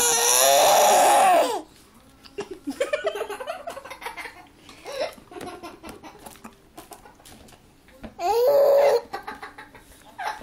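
A small child's loud, high-pitched squealing vocalisation at the start and again about eight seconds in, with quieter short laughs and babbling sounds between.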